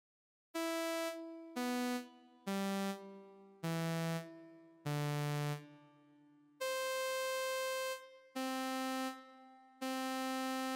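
Ammo 100LA oscillator in Reason, gated by a Charlotte amp envelope and run through an RV7000 reverb, playing eight single synth notes one after another with a bright tone. The first five step downward in pitch and the last three sit higher. Each note starts sharply and leaves a reverb tail that fades after release.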